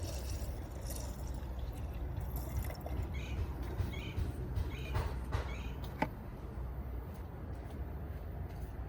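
Coolant being poured from a jug into a car's coolant reservoir, a steady liquid pour with a few light clicks around the middle; the pour eases off about six seconds in.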